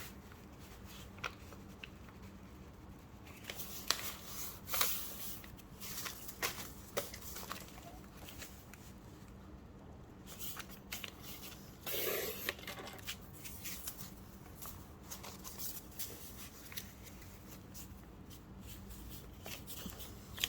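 Sheets of paint-dyed craft paper being handled: intermittent short rustles and light taps, with a longer rustle about twelve seconds in.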